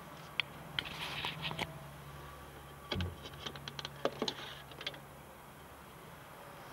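Scattered light clicks and taps from hands and camera handling around the boat's seats and dash fittings, with a single thump about three seconds in, over a faint low hum that stops about five seconds in.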